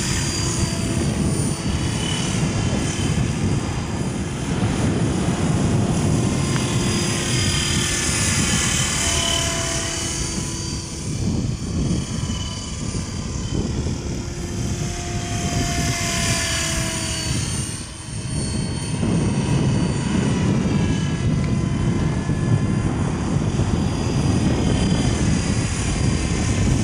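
Outrage Fusion 50 radio-controlled helicopter in flight: steady rotor rush with a whine whose pitch slides up and down as it makes passes, most clearly about eight and sixteen seconds in.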